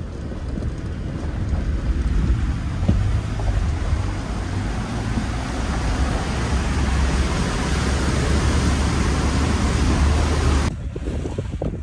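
Heavy wind buffeting the microphone over a vehicle's low rumble, typical of a moving vehicle. The sound cuts off abruptly near the end.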